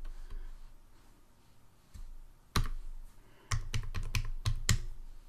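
Computer keyboard being typed on: a single keystroke, then a quick run of about five keystrokes about a second later.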